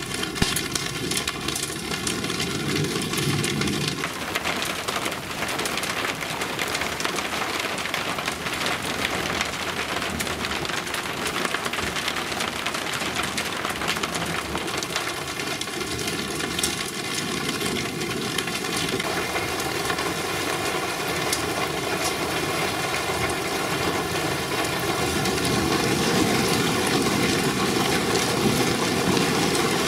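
Heavy rain from a thunderstorm pouring down, a steady dense hiss of large drops, growing a little louder near the end.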